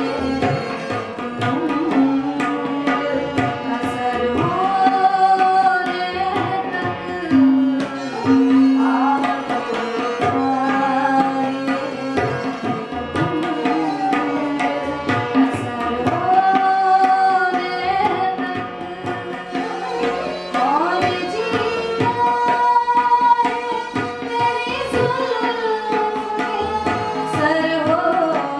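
A woman sings an Indian vocal piece to her own harmonium, accompanied by tabla and a bowed sarangi that follows the melody.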